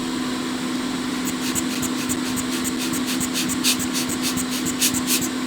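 Steady whirring hum of bench repair equipment, such as a hot-air station blower or fume extractor, with a low steady tone. From about a second in it is overlaid by a dozen or so short, scratchy ticks from small tools being handled at the board.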